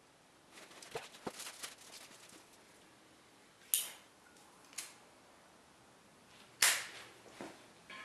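Light knocks and scrapes as a clay-graphite crucible is settled into a homemade foundry furnace, then a few sharp scratchy snaps, the loudest near the end, as a match is struck to light the furnace's propane burner.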